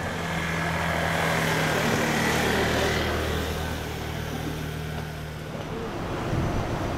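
An engine running at a steady idle, a low even hum that fades away about five and a half seconds in. Near the end a rushing hiss takes over.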